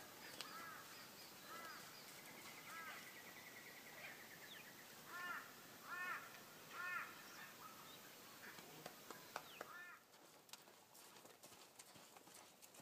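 Faint crow-like bird calls repeated about once a second, each a short arched cry, with three louder calls in the middle and a brief rattling trill just before them.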